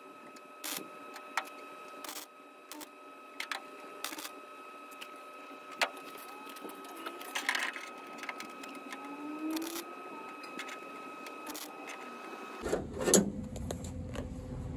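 MIG welder tacking a steel patch into thin sheet metal of a VW Bus door: short, sharp zaps about every half second to a second, with one longer burst about seven seconds in. The welds are kept short to go easy on the thin sheet and let it rest between tacks.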